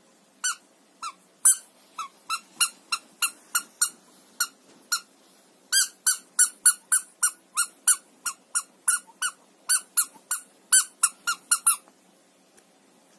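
Rubber squeaky mouse cat toy squeezed by hand over and over, giving short, high squeaks of the same pitch, about two or three a second, coming faster in the second half. The squeaking stops about a second before the end.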